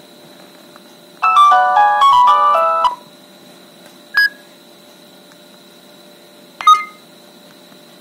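Nokia 3650's built-in speaker playing a polyphonic MIDI ringtone preview: a quick run of bright notes for about a second and a half that stops abruptly. Two short single notes follow, about four and six and a half seconds in.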